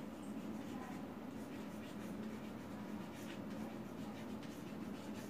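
Chalk writing on a blackboard: short, irregular strokes and taps of the chalk against the board, over a steady low hum.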